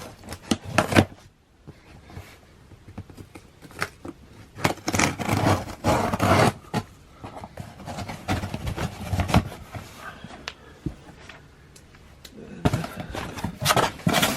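Rustling, scraping and handling noises of clothing being unfolded and moved about, with scattered clicks and a longer burst of rustling in the middle.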